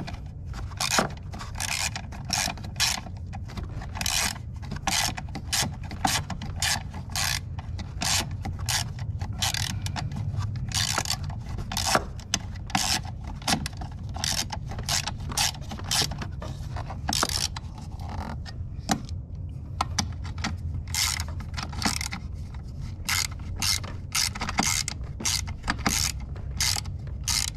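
Pittsburgh hand ratchet clicking in short runs as it is worked back and forth to tighten small nuts, with brief pauses between strokes.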